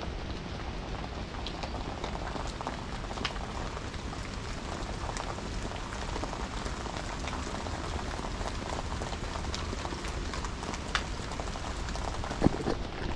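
Steady rain falling, an even patter with scattered small drop ticks.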